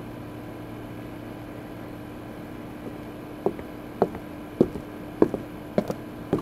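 Steady machine hum from bitcoin-mining rigs running, with a constant low drone. From about three and a half seconds in, footsteps approach: about six hard steps, roughly two a second.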